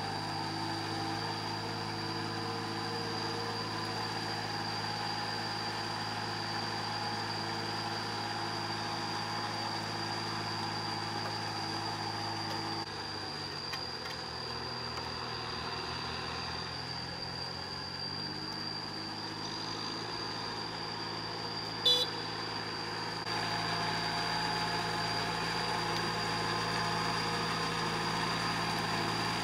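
Compact tractor engine running steadily as the tractor, on cage wheels with a levelling board, works a flooded rice paddy. Mid-way the engine note drops and then climbs back up, and about two-thirds of the way through there is one sharp click. A steady high whine runs underneath.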